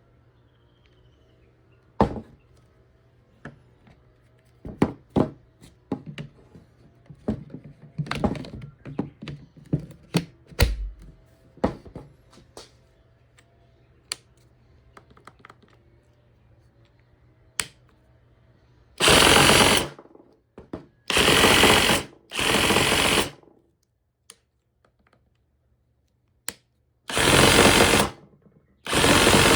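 Makita XRJ04 18V cordless reciprocating saw run in five short bursts of about a second each, after a run of scattered clicks and knocks from handling the tool.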